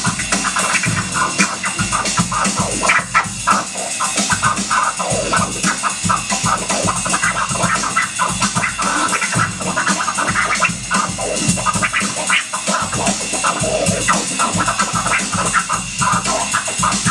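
Turntable scratching over a hip-hop beat: a record cut back and forth in quick, rapid strokes while the beat plays underneath.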